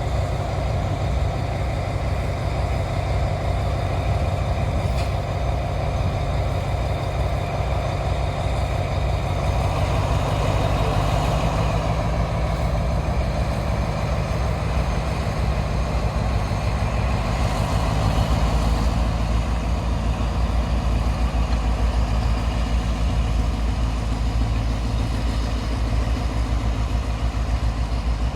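Diesel locomotive No. 4418 running with a steady, deep engine rumble while shunting. The engine note grows a little louder about ten seconds in.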